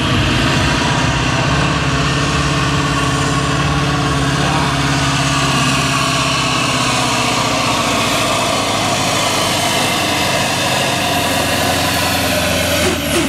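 Pulling truck's diesel engine running flat out under heavy load while dragging a weight-transfer sled, its note held steady and loud throughout the pull.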